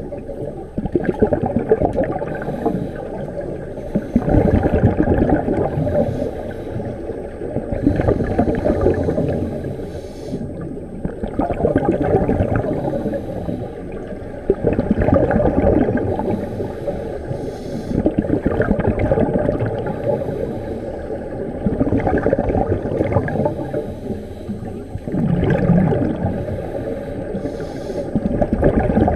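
Scuba divers' exhaled air bubbling out of their regulators underwater, heard in gurgling bursts every three to four seconds through the underwater camera's housing.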